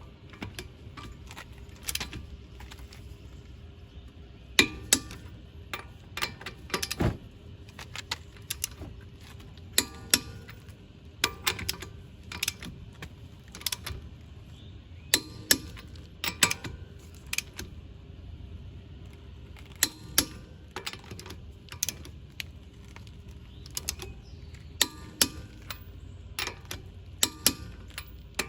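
Irregular metallic clicks and clinks of hand tools working on front brake caliper hardware, with ratchet-like clicking as the caliper bolts are tightened after new brake pads go in.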